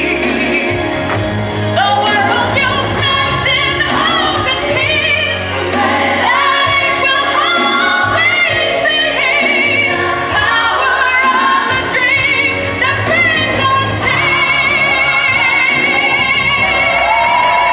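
A woman sings a melody into a microphone over instrumental accompaniment. Near the end she holds one long note with vibrato.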